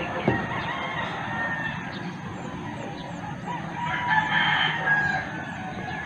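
A rooster crowing outdoors, with its crow loudest about four to five seconds in. A single sharp tap sounds just after the start.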